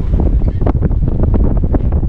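Wind buffeting the microphone: a loud, unsteady low rumble with gusty flutter.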